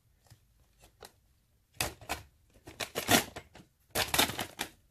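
Metal casing of a Nissan Leaf battery module scraping and clicking against the metal threaded rods as it is slid down them onto the module below. There are a few faint clicks at first, then three short spells of rattling and scraping in the second half.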